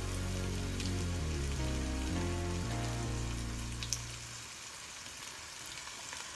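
Background music with deep bass notes, fading out about four seconds in, over the steady hiss of food sizzling in a frying pan.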